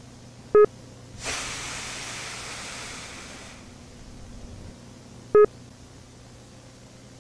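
Two short electronic beeps about five seconds apart. Between them comes a rush of hissing noise lasting about two and a half seconds, loud at first and then fading, all over a steady low hum and tape hiss.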